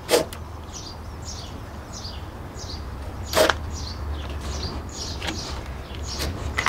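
A small bird chirping over and over, a short falling note about every half second. Two sharp clicks, one just after the start and one about three and a half seconds in, as the bungee cord and its fittings are handled at the camper roof's edge.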